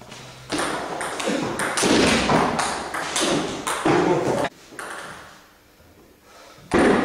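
Table tennis rally: the ball clicks off the bats and the table in quick succession for about four seconds, echoing in a large hall, then stops as the point ends. After a short pause there is another sharp hit near the end.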